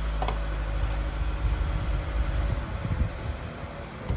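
A car engine idling steadily, turning into a low, uneven rumble a little past halfway.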